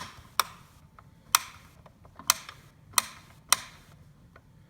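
About six sharp clicks at uneven intervals, from the grind-size adjustment wheel of a Secura SCG-903B burr coffee grinder being turned slowly through its click-stop settings.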